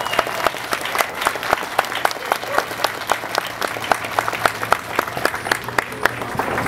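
Audience applauding, with many sharp individual hand claps standing out close by.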